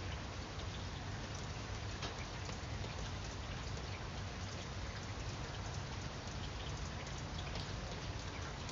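Steady rain falling: an even hiss with scattered single drops ticking sharply through it.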